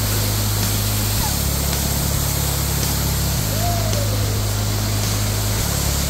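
Whitewater river rapids rushing steadily.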